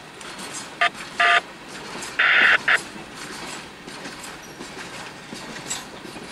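Four short touch-tone beeps from a railroad scanner radio, between about one and three seconds in. Under them is the rolling clatter of the last empty coal hopper going by.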